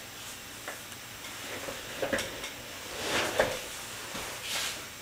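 Steady background hiss with a few soft rustles and light knocks, the loudest a short scuffle a little after three seconds in.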